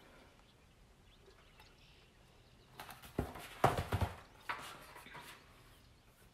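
Picture book being handled: a few light knocks and the rustle of paper pages being turned, starting about three seconds in after a quiet start.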